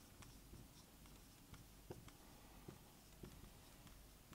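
Marker pen writing on a whiteboard, faint, with a few scattered ticks from the pen strokes.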